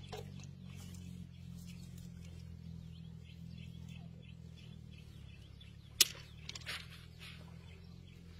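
Light rustling and clicking from a fishing net being handled and cut by hand, with one sharp click about six seconds in, over a low steady hum.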